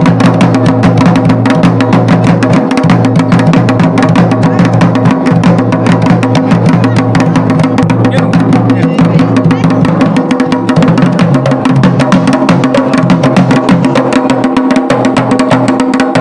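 Garhwali dhol played with fast, unbroken strokes, over a steady sustained tone.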